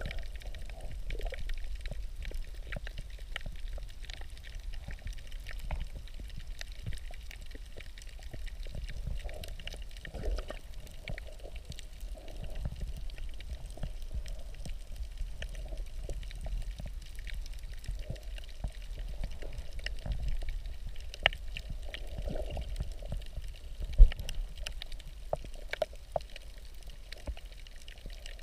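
Muffled underwater water noise picked up by a submerged camera: a steady low rumble of moving water with scattered small clicks and pops, and one sharp knock about 24 seconds in.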